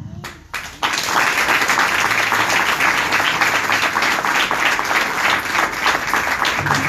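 Two brief knocks, then from about a second in a roomful of people applauding, dense and steady.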